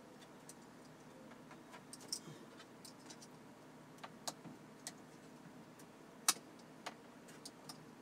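Scattered small, sharp clicks and taps of plastic and metal as a wiring connector is worked loose from the back of a car's dashboard display screen, the loudest click about six seconds in.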